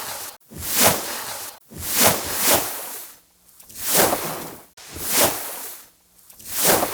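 Rhythmic water splashing and sloshing, one swell about every second, like the strokes of a swimmer: a swimming sound effect.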